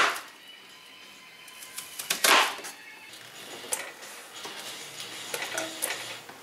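Kitchen handling noises: a sharp knock right at the start, a louder clatter about two seconds in, then a few lighter clicks and taps.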